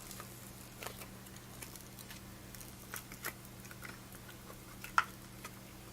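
Cured resin casting being worked out of its flexible silicone mold: a few faint soft clicks and crackles, the clearest about five seconds in, over a steady low hum.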